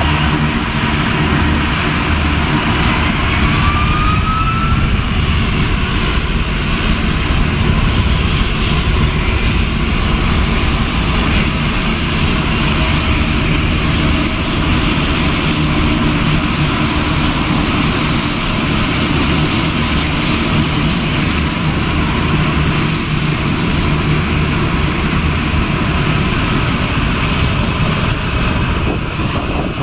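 Saab 2000 turboprop taxiing, its Allison AE2100 engines and six-bladed propellers running with a steady low drone. A faint rising whine comes in about three to five seconds in.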